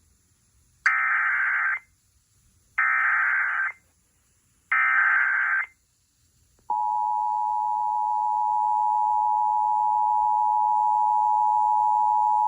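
Emergency Alert System header: three bursts of SAME data tones, each about a second long, that encode the alert. About seven seconds in, the steady EAS attention tone starts and holds, signalling that a spoken warning message follows.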